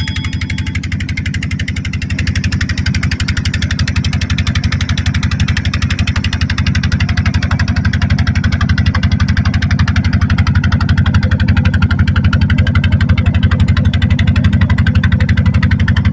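Small wooden fishing boat's inboard "dompeng" single-cylinder diesel engine running steadily with the boat under way, a fast, even chugging beat. It grows slightly louder toward the end.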